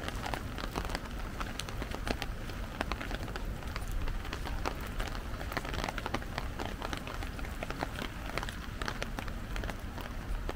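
Steady rain falling, with a dense, irregular patter of individual drops striking an umbrella close overhead.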